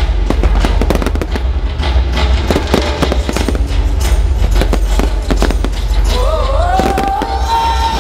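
Fireworks bursting in quick succession, dense crackles and bangs over a heavy low rumble, with music playing underneath. About six seconds in, the bangs thin out and a long held high note from the music comes to the fore.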